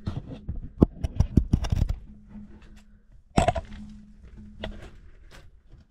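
Camera handling noise as it is worked into a hole under a rock: a quick run of knocks and scrapes for about two seconds, then one loud knock a little past halfway and a few light taps.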